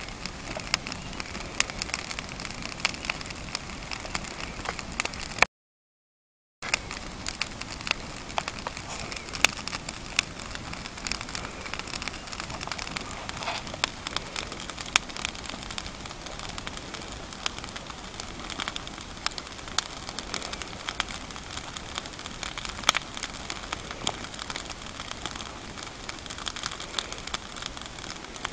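Wood fire burning with a steady hiss and frequent sharp crackles and pops. It cuts to dead silence for about a second, some five seconds in.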